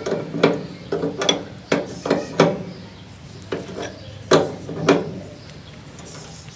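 Irregular knocks and clanks, about ten in all, each with a short ring: tools and metal parts being handled on the pressure washer during the thermostat fitting.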